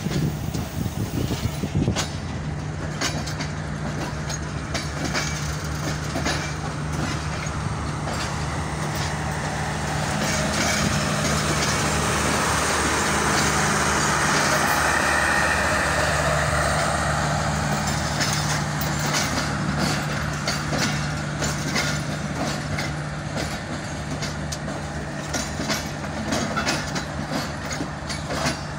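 Pakistan Railways passenger coaches of a departing express train rolling past, their wheels clicking over the rail joints, over a steady low hum. A rushing rolling noise swells through the middle and then eases off.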